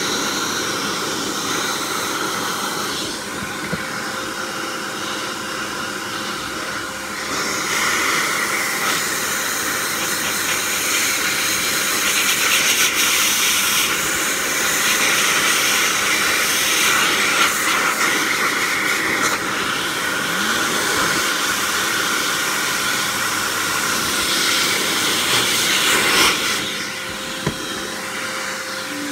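High-intensity dog dryer blowing a steady rush of air over fan-heater elements to clear dust and fluff from them. The blast swells louder about seven seconds in and drops back near the end.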